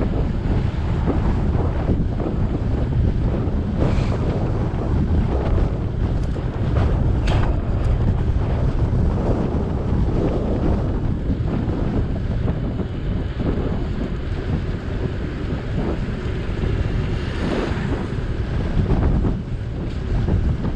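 Wind buffeting an action camera's microphone while riding an electric bike: a steady, heavy low rumble, with a few short sharp noises along the way.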